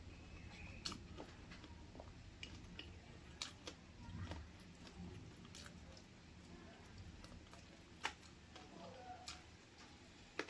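Faint close-up chewing and mouth sounds of someone eating chicken feet and gizzard curry with rice, with a few sharp clicks scattered through.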